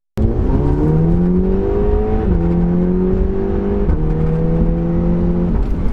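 Audi TTS's turbocharged four-cylinder engine pulling under load: its note climbs for about two seconds, then drops in a step twice, as with upshifts, and falls away near the end.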